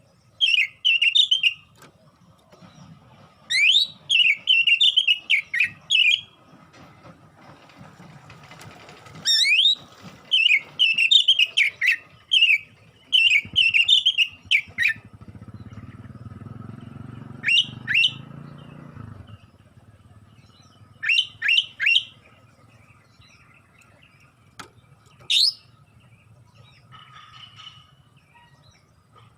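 Oriental magpie-robin singing in loud bursts: quick warbled phrases and upward-sweeping whistles with short pauses between, thick in the first half and down to a few short calls later. A low rumble sits under the song about halfway through.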